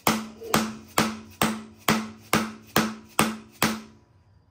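Hammer striking a bolt driven into an LS V8's crankshaft pilot bore packed with bread, the hydraulic trick for pressing out the old pilot bearing. Nine steady blows, about two a second, each with a short metallic ring, stopping near the end.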